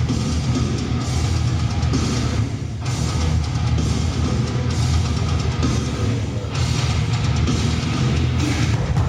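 Loud heavy metal music with a pounding drum kit and distorted guitars, played steadily.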